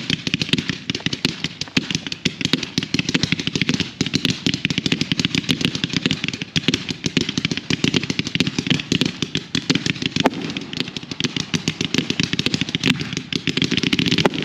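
Fireworks going off in a rapid, continuous barrage of sharp pops and crackles, many a second, with no pause.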